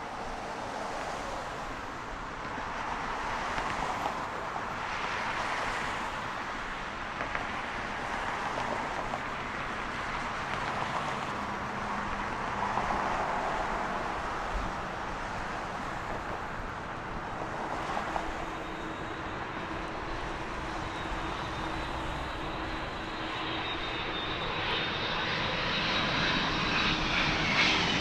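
Airbus A300-600 freighter's Pratt & Whitney PW4000 turbofans heard as a steady rumble that grows louder as the jet approaches. A steady whine joins about two-thirds of the way through, and whistles fall in pitch near the end as it comes closest.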